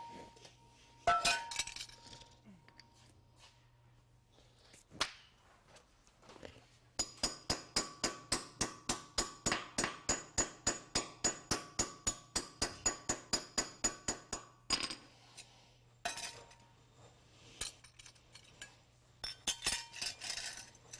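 Claw hammer tapping a wedge anchor down into a drilled hole in concrete: a fast, even run of light metal-on-metal strikes with a ringing clink, about four a second, lasting some eight seconds in the middle. Scattered metal clinks and knocks come before and after it.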